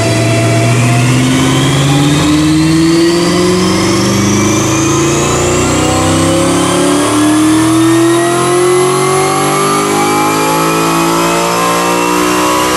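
Turbocharged Audi R8 V8 at full throttle on a chassis dynamometer, a power run: the engine note climbs steadily in pitch as the revs rise.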